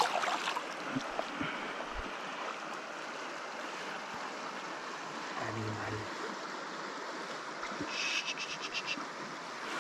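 River water rushing steadily, with a brief run of rapid clicks about eight seconds in.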